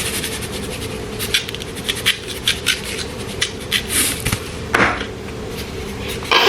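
Seasoning shakers being shaken and tapped over a plate of flour: a run of light, quick clicks and rattles, with a louder brushing scrape about five seconds in and another at the end.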